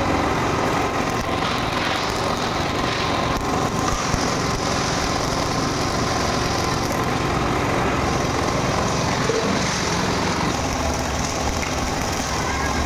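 Electric arc welding with a stick-welder electrode holder feeding a long bare wire, used like a MIG torch: the arc runs steadily along a steel seam.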